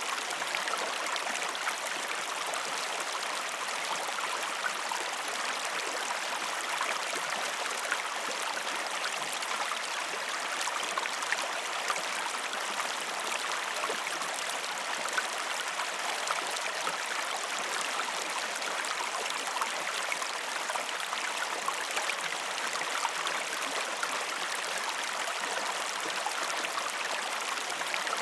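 A waterfall's falling water rushing steadily, with small splashes flecked through it.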